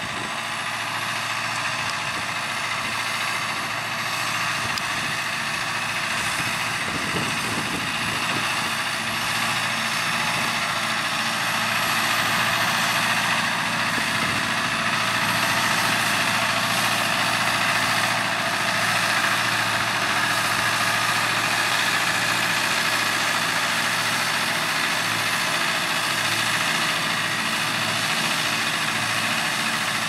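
Massey Ferguson 6715S tractor's diesel engine running steadily under load as it pulls a four-furrow plough through the soil. The drone stays even, growing slightly louder partway through.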